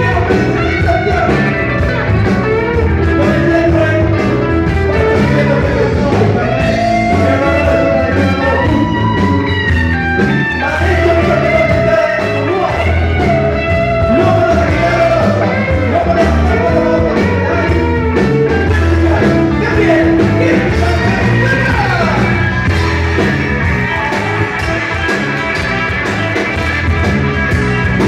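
A live blues band playing with electric guitar, saxophones and brass, and keyboard, loud and continuous.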